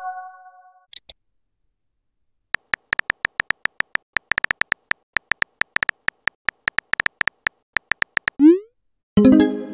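Text-messaging app sound effects: a string of quick virtual-keyboard key clicks as a message is typed out, followed near the end by a short rising send swoosh and a bright message chime.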